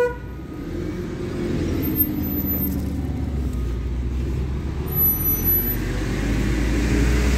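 Road traffic: a steady low rumble, with a slowly falling tone in the first few seconds.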